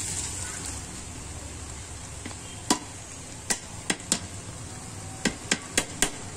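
Cooked rice tipped from a plastic colander into a steel pot, a soft sliding hiss of grains, followed from about two and a half seconds in by about eight sharp knocks on the pot, irregularly spaced, as the last rice is shaken out.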